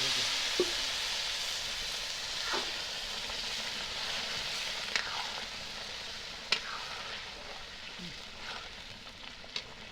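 Rice for polao sizzling in hot oil in a cooking pot, a steady hiss that slowly dies down. Several sharp clinks from stirring come through it, about once every two seconds.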